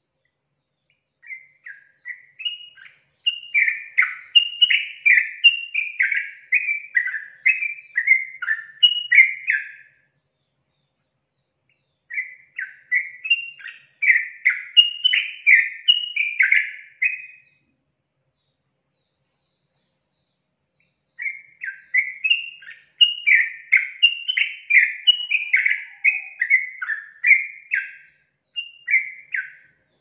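Yellow-vented bulbul (trucukan) singing in three bouts of quick, short notes that rise and fall in pitch, each bout several seconds long, with pauses of a few seconds between them.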